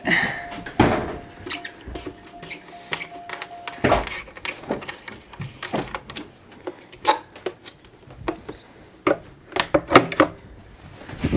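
Scattered clicks and light knocks of hands working around a plastic cap in a Cadillac V8's engine bay. A faint steady whine runs for the first few seconds.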